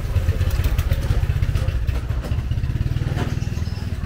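Motor scooter engine running as the scooter passes close by in a narrow alley, a fast steady low pulsing that eases off near the end.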